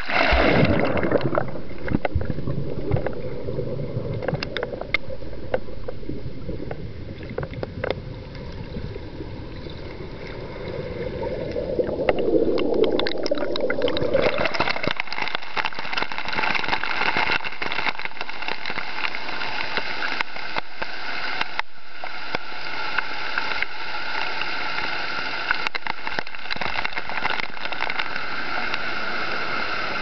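Water heard with the microphone underwater: a sudden splash, then muffled gurgling and sloshing. About fifteen seconds in, the sound turns into the steady, bright rushing hiss of a waterfall pouring over rock.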